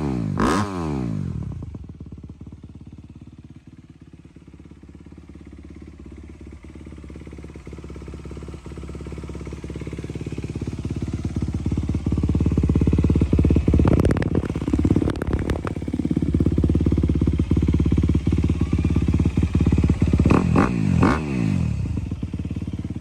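Honda CRF250R single-cylinder four-stroke dirt bike engine idling and blipped with quick throttle revs: two blips at the start, a cluster in the middle and two more near the end. The idle fades, then grows steadily louder in between.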